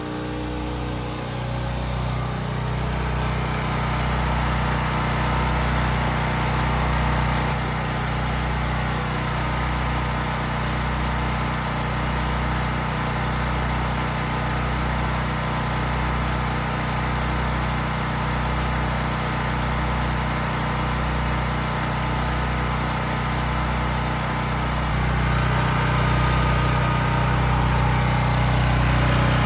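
Champion 11500/9200-watt portable generator engine running steadily with no load, warming up just after a cold start on choke. About 25 seconds in, the engine note shifts and grows slightly louder.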